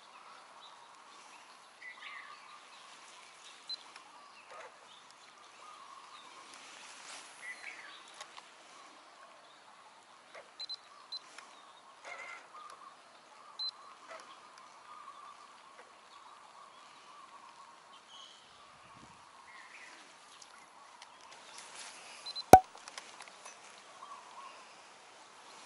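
Quiet lure fishing from a boat with a spinning rod and reel. A faint steady whine runs throughout, with scattered light clicks and one sharp click about 22 seconds in.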